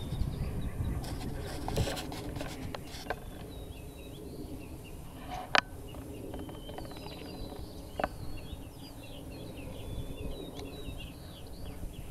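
Outdoor ambience: small birds chirping in the background over a low rumble, with a few sharp clicks, the loudest about halfway through.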